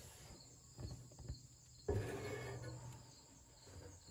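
Handling noises from working with an oil bottle and the phone: a couple of light knocks, then a rustling scrape about two seconds in. Faint, steady insect chirping goes on behind them.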